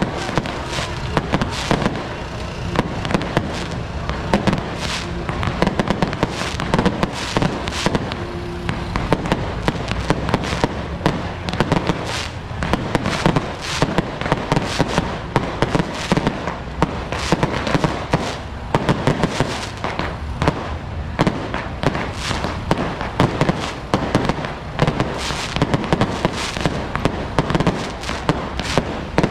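Firecracker and fireworks barrage going off without a break: dense crackling with sharp, loud bangs several times a second.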